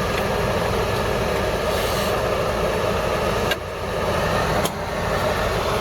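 KAMAZ fuel-truck diesel engine running steadily. Its level dips briefly about three and a half seconds in, then picks back up.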